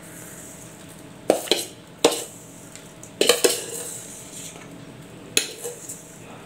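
A metal spoon scraping and clinking against the inside of a stainless steel bowl, scooping out crumbly steamed sago puttu: several sharp scrapes and clinks at uneven intervals, some in quick pairs.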